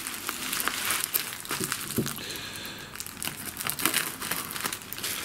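Bubble wrap and brown packing tape crinkling and crackling as hands work and cut them open, in quick irregular crackles, with a short rasp about two seconds in.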